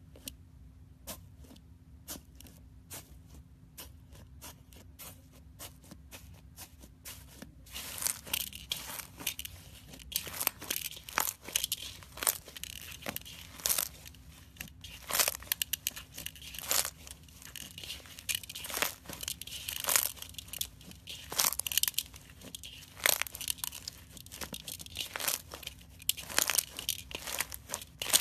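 Iceberg slime's dried crust crackling and crunching as it is pressed and broken up. There are faint scattered clicks at first, then dense, louder crackling from about eight seconds in.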